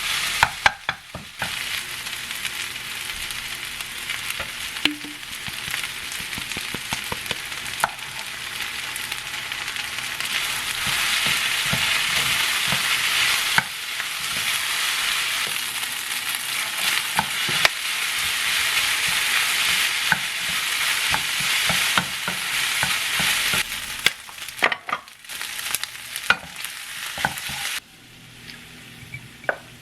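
Food sizzling in a frying pan as it is stirred, with sharp clacks of a utensil against the pan. The sizzle grows louder through the middle, then breaks into separate clacks and drops away near the end.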